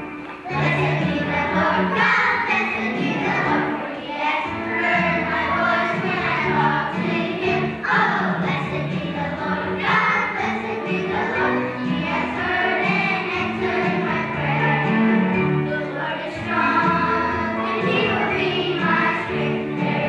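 Children's choir singing a song together over instrumental accompaniment, with held bass notes under the voices.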